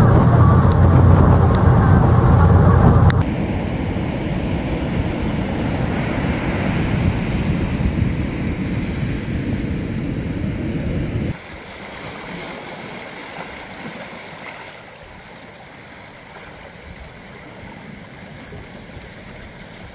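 Low rumble of a ferry's engine and wind on the deck for about three seconds, then surf breaking on a sandy beach in a steady rush. About eleven seconds in it gives way to quieter waves washing in among smooth rounded stones on a pebble beach.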